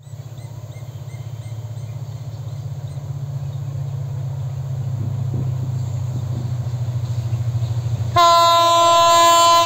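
EMD GT38ACL diesel-electric locomotive approaching, its low engine throb growing slowly louder. About eight seconds in it sounds one loud, held blast of its air horn.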